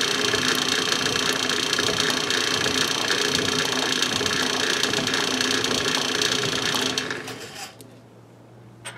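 Atlas metal shaper running steadily, its motor and drive giving a constant whine with a fast mechanical chatter. About seven seconds in it is switched off and the sound dies away within a second, leaving a faint click near the end.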